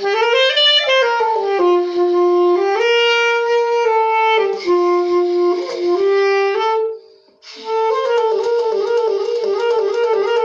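Alto saxophone playing a short melody in two phrases, with a breath pause about seven seconds in. The second phrase has quicker runs of notes.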